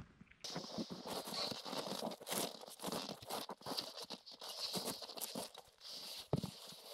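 Faint, irregular crunching and scraping: a person moving about on packed snow and handling plywood sheets at a light aircraft, with a dull thump near the end.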